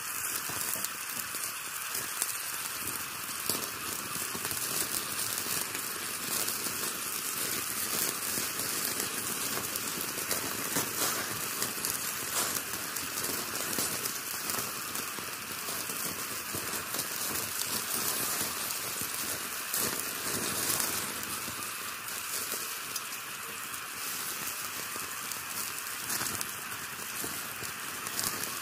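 Meat sizzling in a wire grill basket over hot charcoal, a steady dense crackling with fine pops and clicks.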